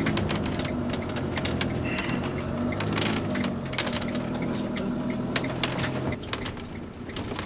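Motorhome engine running at low speed during a U-turn, with many irregular clicks and crackles over it. The engine hum eases about six seconds in.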